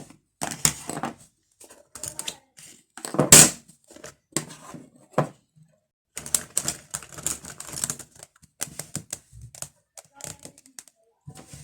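Fingernails tapping and clicking on a pencil case in quick, irregular clusters, with one louder knock about three and a half seconds in.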